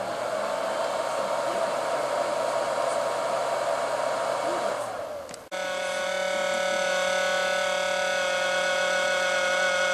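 A machine's motor running with a whoshing whine, which the uploader presents as an abnormal noise. It winds down about five seconds in, breaks off sharply, then carries on as a steadier, higher whine.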